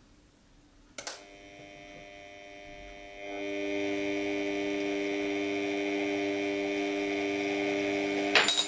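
Turntable's electric motor humming steadily as it drives the disc, starting with a click about a second in and getting louder about three seconds in as the speed is turned up. A brief clatter near the end as the coins slip and fly off the spinning disc.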